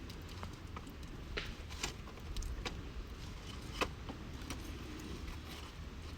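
Wood campfire crackling: irregular sharp pops and snaps of burning wood over a steady low rumble, with the loudest pop about four seconds in.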